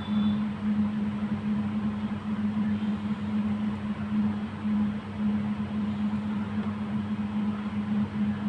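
Cooling fan running steadily: a constant low hum over an even whooshing hiss.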